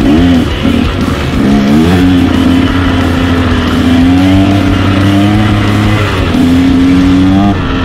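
KTM dirt bike engine pulling through the gears, its pitch climbing in several pulls and levelling off between shifts, with music playing underneath.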